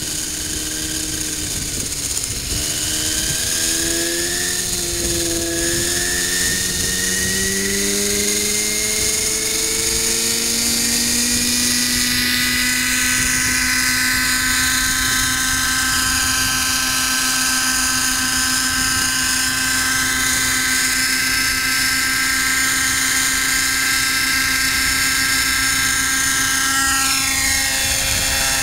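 X-Cell 90 nitro RC helicopter's two-stroke glow engine and rotor spooling up, the whine rising in pitch over the first ten seconds or so as it lifts off, then a steady high-pitched whine whose pitch swings up and down as the helicopter flies around.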